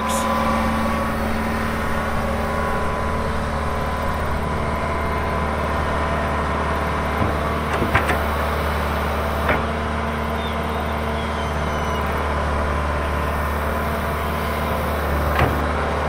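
John Deere hydraulic excavator with a long-reach boom running steadily as it digs, its diesel engine droning at a constant pitch. A few sharp knocks cut through partway through and again near the end.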